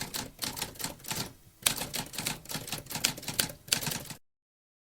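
Typewriter typing: a quick run of key strikes, several a second, with a short break about a second and a half in, stopping abruptly near the end.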